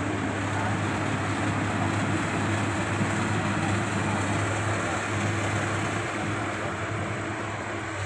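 An excavator's diesel engine running steadily, with an even low hum.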